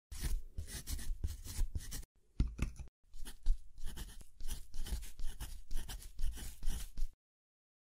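Pen nib scratching on paper in quick, irregular strokes, as if writing by hand. There are two brief pauses between about two and three seconds in, and the scratching stops abruptly about a second before the end.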